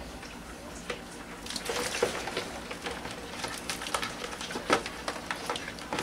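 Shallow water splashing and sloshing in a plastic tub as a hand grabs live mangrove crabs among wet grass, with many scattered sharp clicks and knocks, thicker from about a second and a half in.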